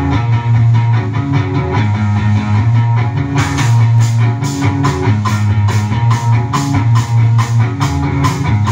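Live rock trio: electric guitar playing over a repeating low bass figure. About three and a half seconds in, the drums join with regular crisp cymbal strokes, about three a second.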